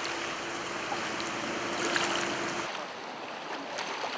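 River current rushing over rocks, a steady noise of flowing water that drops to a softer rush about two and a half seconds in.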